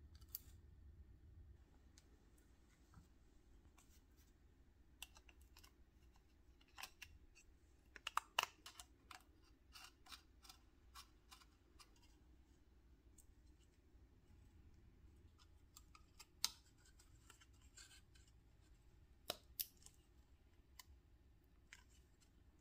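Faint clicks, taps and light scrapes of small electronics parts being handled: a Raspberry Pi board, small screwdrivers on metal standoffs and a plastic case. The sharpest run of clicks comes about eight seconds in, with single louder clicks later on.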